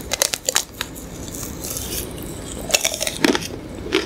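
Crunching bites into a chocolate-coated ice cream bar: its hard, nut-studded chocolate shell cracks in a run of crisp, irregular crackles, with a second cluster about three seconds in.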